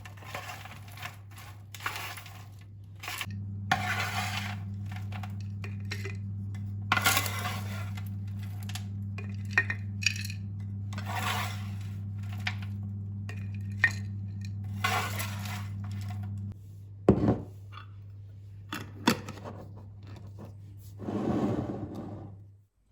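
Dishes and metal utensils clinking and scraping in a kitchen, over a steady low electrical hum that grows louder about three seconds in and drops back about sixteen seconds in.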